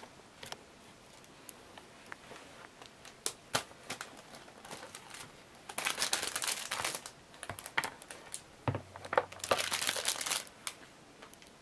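Packaging being handled and crinkled, in two crackly spells about six and nine and a half seconds in, with light taps and clicks between.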